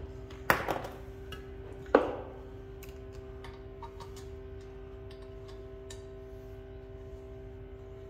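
Metal clinks and ticks from brass valve fittings being handled and tightened on a refrigerant reclaim tank: two sharp, louder clanks in the first two seconds, then a few lighter taps, over a steady low hum.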